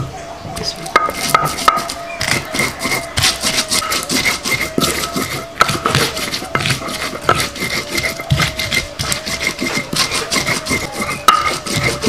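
Stone pestle grinding and crushing garlic, coriander seeds and salt on a flat stone grinding slab (batu lado): rapid, irregular gritty scrapes and sharp stone-on-stone clacks.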